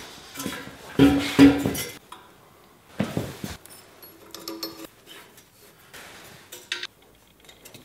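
Metallic clinks and clanks from hand work on a motorcycle exhaust: a rusty steel 4-into-1 header being offered up to the engine and Allen-head cap screws with washers being fitted into its flanges and turned with an Allen key. The loudest clanks come in the first two seconds, with a sharp knock about three seconds in.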